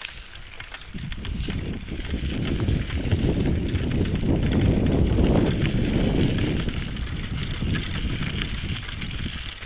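Wind noise on a handheld phone microphone during a bicycle ride: a low rumble that grows loudest in the middle and eases toward the end.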